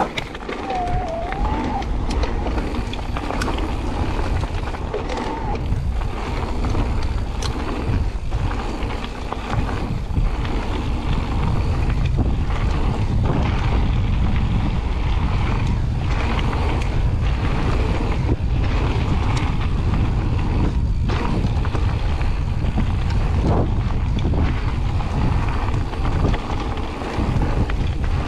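Wind buffeting the microphone while an e-mountain bike rides a gravel trail, its tyres rumbling over the stones, with frequent short knocks and rattles from the bike on the rough surface.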